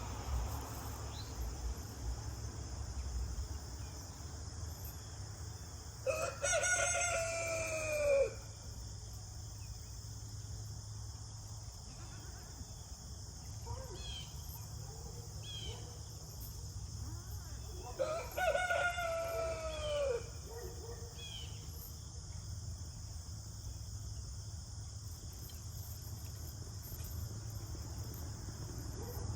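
Rooster crowing twice, each crow about two seconds long, with a few short fainter calls in between.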